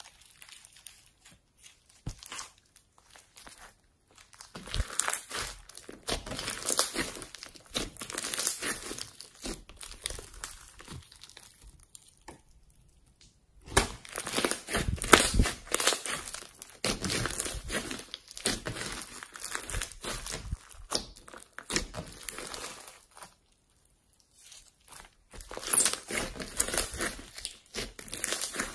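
Hands squeezing and kneading slime, giving a dense crackle of small pops and clicks. It comes in several bouts with short pauses between them.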